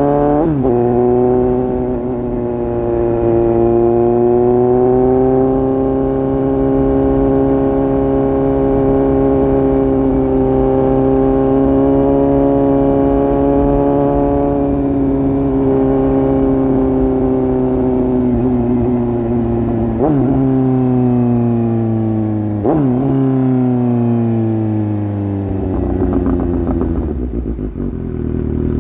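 Suzuki GSX-S750 inline-four running through an exhaust with the dB killer removed. It changes up a gear at the start, holds a steady cruise, then slows down with two quick downshifts in the second half and settles to a low, rough note near the end.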